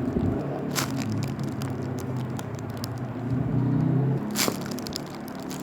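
Light crackling and clicking from a squishy toy and its plastic being handled, with two sharper crackles about a second in and near the end, over a steady low hum.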